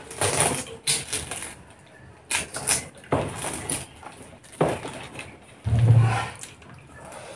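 Close-up eating sounds: a string of short chewing and mouth noises, a second or so apart, as rice and curry are eaten by hand. A brief low hum comes about six seconds in.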